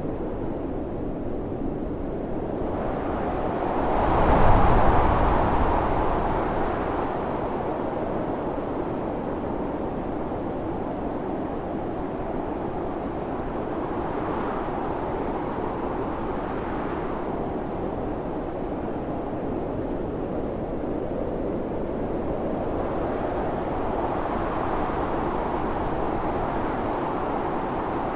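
Heavy blizzard wind blowing steadily, with a strong gust swelling up about four seconds in and easing off, and a gentler rise near the end.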